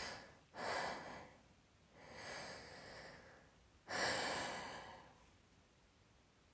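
A person breathing audibly, four long breaths with short pauses between them.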